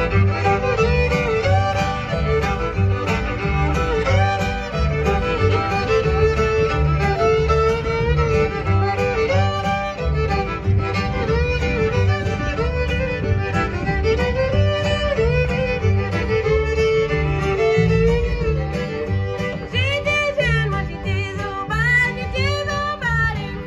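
String band playing an instrumental two-step: two fiddles carry the melody together over an upright bass and acoustic guitar keeping a steady beat.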